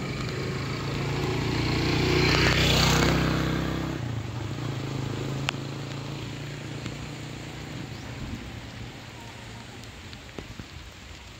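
A motor vehicle passes by, its engine sound swelling to a peak about three seconds in and then fading, over steady rain falling on water and ground. A single sharp click about five seconds in.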